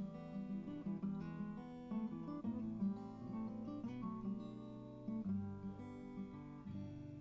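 Background music: acoustic guitar playing a sequence of plucked and strummed notes.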